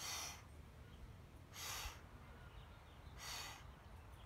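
A person's sharp, forceful exhales in a rhythmic breathwork exercise: three short hissing puffs of breath, about one every second and a half.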